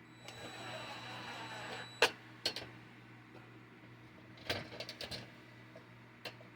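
A cordless drill/driver whirs for about two seconds, driving a screw, ending in a sharp click; then several knocks and clicks from tools and parts being handled, over a steady low hum.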